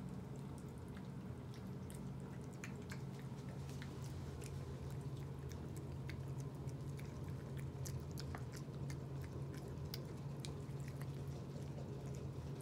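A cat chewing and licking avocado off the floor: a steady run of small, irregular clicks and smacks from its mouth. A steady low hum runs underneath.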